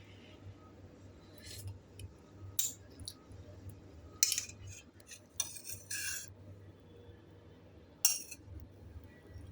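A spoon clinking and scraping against dishware: a handful of short knocks and scrapes, the sharpest about four seconds in and again about eight seconds in, over a low steady hum.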